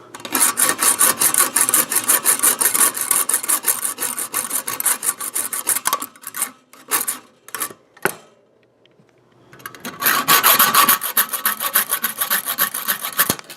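Bendy hand hacksaw cutting through the protruding end of a metal screw under a recliner's undercarriage, in quick back-and-forth strokes. About six seconds in the sawing slows to a few separate strokes and stops for a moment, then starts again at the same quick pace.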